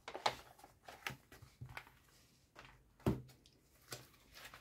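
Paper colouring books being handled: soft rustles and light knocks, with a louder dull thump about three seconds in as a book is swapped or set down.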